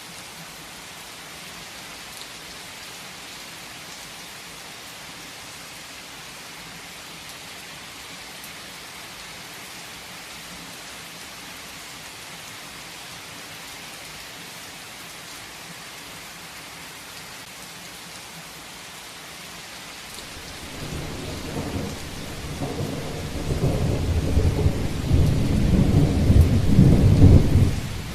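Steady heavy rain hissing. About two-thirds of the way through, a long rolling thunder rumble builds, grows loudest near the end, and then cuts off suddenly.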